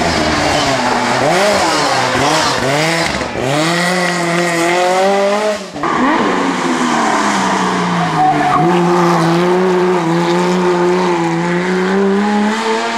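Historic rally car engines at full throttle on a tarmac stage: the first car revs up and down through its gear changes, the sound breaks off abruptly about six seconds in, and a second car's engine follows with a steady high note that slowly climbs.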